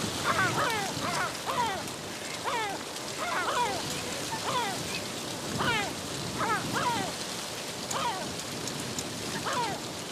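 Yellow-legged gulls calling over and over, short calls that drop in pitch, often two or three in quick succession. They sound over a steady hiss of noise.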